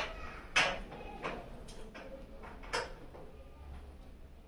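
A few sharp, irregular clicks and knocks as a Yamaha R15 V3's side mirror is tightened onto its mount by hand and tool, the loudest about half a second in.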